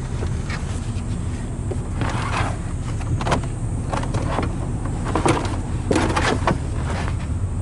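Carpeted trunk floor cover being lifted and handled over the spare tyre: rustling with a few knocks about two seconds in and again between five and six and a half seconds, over a steady low hum.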